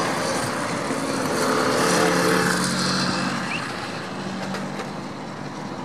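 Steady jet roar from the four CFM56 engines of an Airbus A340-300 on final approach, with a faint low hum. The roar swells about two seconds in, then eases off a little.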